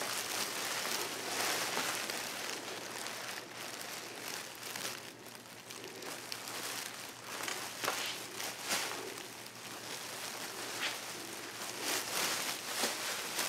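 Faint rustling and handling noise, with a few light clicks and knocks scattered through it, as someone moves about among cardboard boxes and plastic bags.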